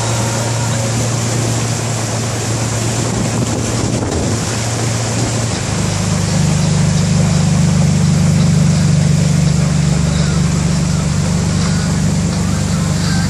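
Small motorboat's engine running steadily under water and wind noise; about six seconds in its pitch steps up and it gets a little louder as the engine speeds up.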